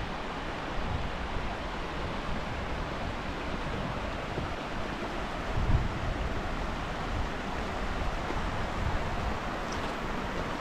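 Steady rush of a shallow, rocky mountain river flowing over stones, with wind buffeting the microphone and one stronger gust about halfway through.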